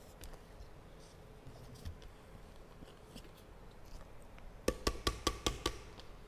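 Quiet sounds of eating by hand from a paper box, with faint small clicks and chewing, then near the end a quick, even run of about six sharp knocks, like tapping on wood.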